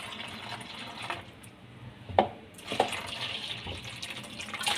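Whey from freshly curdled milk pouring and splashing out of a steel bowl into a muslin cloth as the curds are strained, with a sharp knock about two seconds in.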